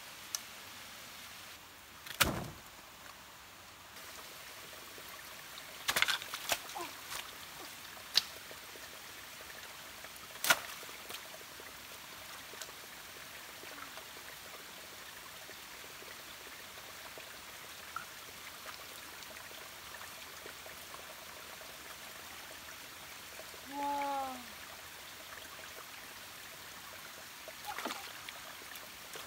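Shallow forest stream trickling steadily. A few sharp knocks and splashes come in the first ten seconds or so, and a short call falling in pitch comes near the end.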